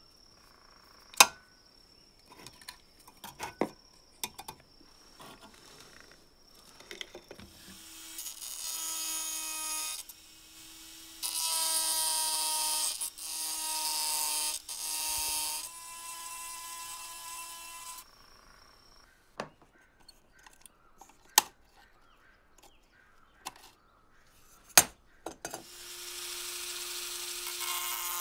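Scattered small clicks as screws are worked out of a lamp switch with a screwdriver, then a handheld rotary tool with an abrasive rubber point spins up at a steady pitch and grinds against the sheet-metal lamp housing in loud scraping bursts. It stops for a few seconds with a few sharp knocks, then starts grinding again near the end.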